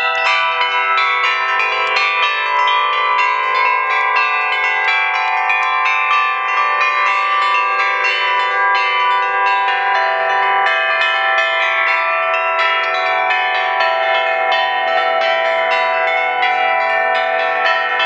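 Russian-style bell ringing on a set of small tuned bells hung in a wooden frame: the bells are struck rapidly and continuously, and their tones ring over one another. A lower bell joins about two-thirds of the way through.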